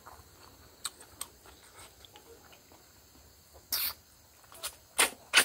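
Close-up eating sounds of a person chewing pork and snails: scattered wet mouth clicks and smacks, with three louder short smacking bursts in the last two seconds.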